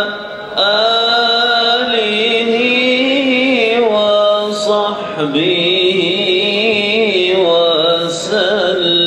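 A man's voice chanting a slow, ornamented melody into a microphone: long held notes that waver and turn, in phrases broken by short breaths about half a second in, around five seconds and near the end.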